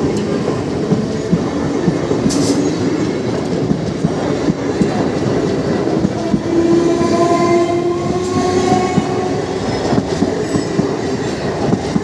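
Suburban electric local train passing close over a level crossing: continuous loud wheel clatter over the rail joints, with a drawn-out whine that rises slightly in the middle.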